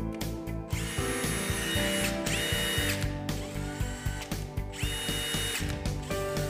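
Makita DTD172 18V brushless cordless impact driver run with no bit or load in three trigger pulls: a high motor whine that spins up and holds, the first run about a second and a half long and the next two shorter. Background music with a steady beat plays underneath.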